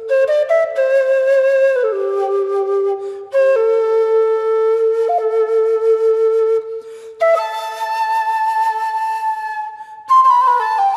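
Slow meditation music led by a flute: long held notes that step down and back up, with short breaks between phrases about three, seven and ten seconds in.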